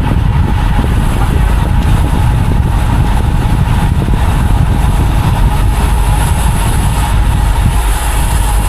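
Wind rushing over a riding cyclist's camera microphone, a loud, steady rumble, with a thin steady tone running under it.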